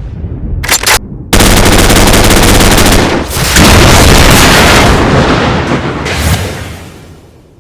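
Rapid automatic gunfire: two short bursts, then a long sustained burst of fast shots that fades out near the end.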